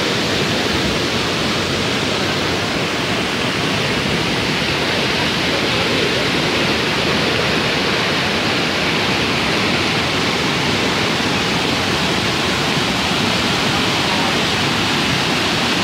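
A swollen river in flood, its muddy brown water rushing past in a loud, steady wash of noise.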